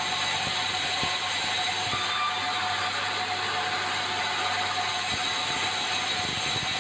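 Sawmill machinery running steadily: a dense, even mechanical noise with a steady whine over it.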